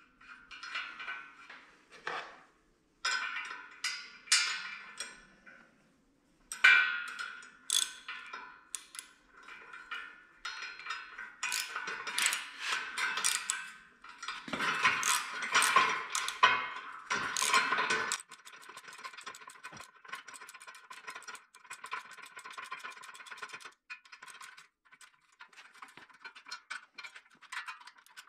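Steel bolts, nuts and bender parts clinking and knocking as a compact metal bender is bolted together. About two-thirds of the way in, a ratchet wrench starts clicking rapidly as the nuts are run down.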